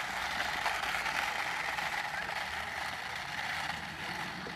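Toy RC buggy's small electric motor and plastic gearbox whirring steadily as it drives along a tarmac path, growing fainter as it moves away.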